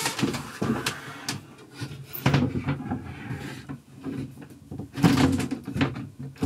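Wooden-framed folding partition panels being swung round on their hinges: irregular knocks and rubbing of wood and metal fittings, loudest about two and five seconds in.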